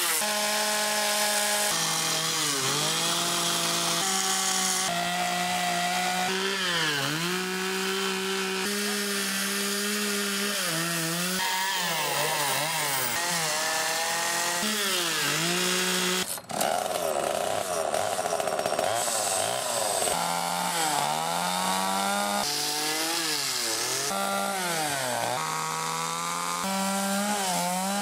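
Chainsaw carving into a log, its engine note repeatedly dropping in pitch as the bar bites into the wood and rising again as it revs free.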